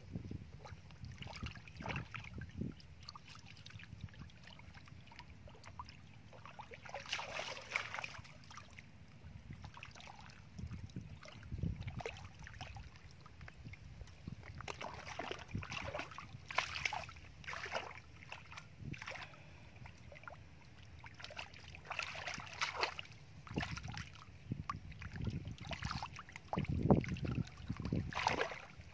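Irregular splashes and sloshing of hands working through shallow muddy water, groping in the mud for fish, with a few dull thumps.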